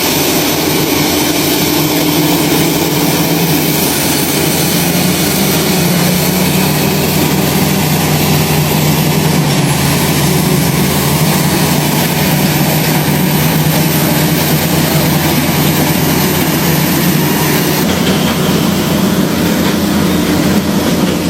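Heavy diesel engines of crawler bulldozers and a logging truck running hard under load, the bulldozers towing the loaded truck uphill. A loud, steady drone whose pitch shifts a little.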